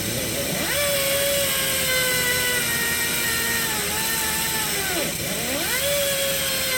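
A power tool's motor running under varying load: its pitch slowly sags, drops sharply twice and climbs back up each time, over a steady hiss.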